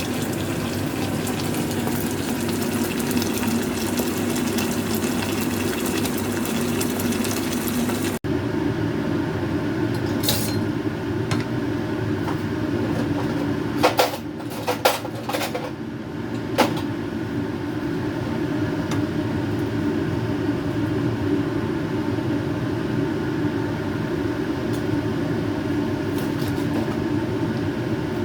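A steady rushing noise runs throughout, with a handful of sharp clinks of a metal utensil against a pan or dish about halfway through.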